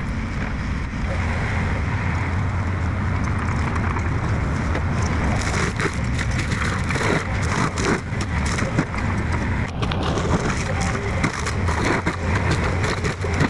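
Heavy machinery's diesel engine running steadily, with many sharp cracks and crunches through the middle and later part, as of trees being torn out and broken.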